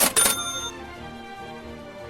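A cash-register "ka-ching" sound effect at the start, a short clatter with a high bell ringing on briefly, over steady background music.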